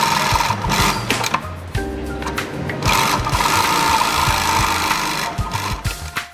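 Post-bed leather sewing machine stitching at speed, in two fast runs with a short slower stretch about two seconds in, easing off near the end; background music underneath.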